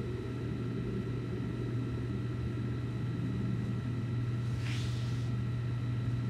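A steady low hum with faint, steady high tones above it, and a brief soft hiss about five seconds in.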